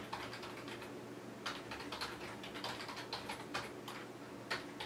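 Typing on a computer keyboard: key clicks in short, irregular runs.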